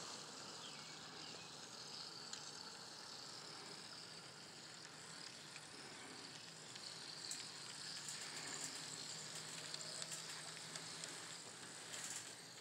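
N scale model trains running on the layout: a faint steady hiss with a low hum underneath and light, irregular clicks that grow more frequent about seven seconds in.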